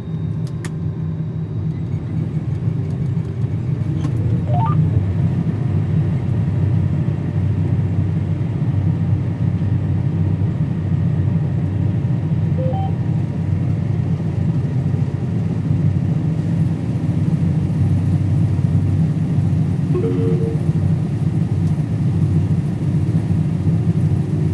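Combine harvester running steadily, a loud low drone, with a short rising whine about five seconds in.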